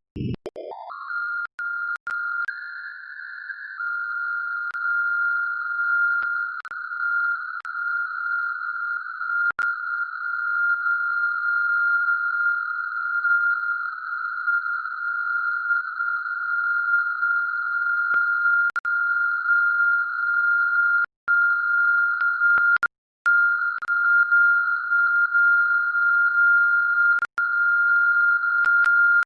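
Steady high electronic whistle from a computer's sound output while running the CwGet Morse decoder, which the uploader takes for an audio loop feedback. It glides up in pitch in the first second, then holds one pitch with a few brief dropouts.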